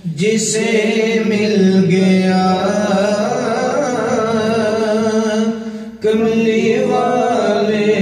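A man's unaccompanied voice chanting a devotional line in long, melismatic held notes, with a short break for breath about six seconds in.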